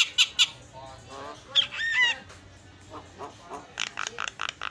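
Javan myna (jalak kebo) singing a varied, chattering song. It opens with sharp clicking notes, has a warbling phrase with gliding whistles in the middle, and ends with a quick run of short repeated notes.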